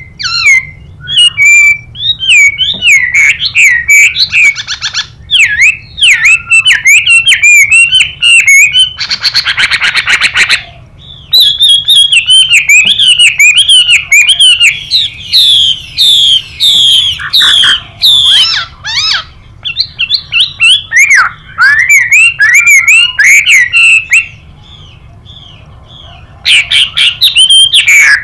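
Chinese hwamei singing a loud, rapid, varied song of slurred whistled notes. A harsh buzzy rasp comes about nine seconds in, and the song breaks off briefly near the end.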